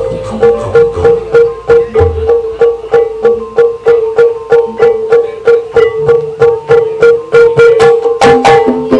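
Live ebeg accompaniment music: a fast, even run of struck or plucked notes, about four a second, over a steady held tone, with a few low drum strokes.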